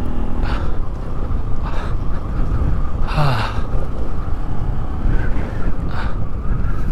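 Motorcycle engine running at low speed on a rough rocky track, with wind buffeting the microphone and a few short rushes of noise.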